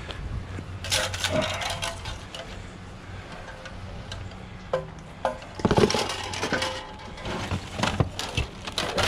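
Hard plastic and metal printer parts knocking and clattering as they are picked up and handled, with rubbish being rummaged through. Several separate knocks come a little before the middle, then a louder burst of rattling, with more near the end.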